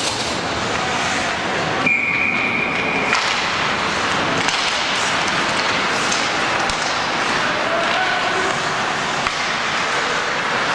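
Ice hockey game sound: a steady wash of noise from skates on the ice and spectators' voices. About two seconds in, a single high whistle is held for about a second, most likely the referee stopping play.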